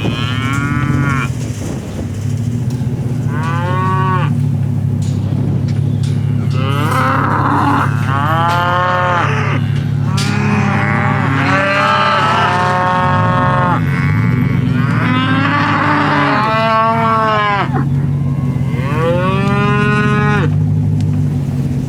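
A herd of cattle mooing over and over, with several calls overlapping, each rising and falling in pitch. A steady low hum runs underneath.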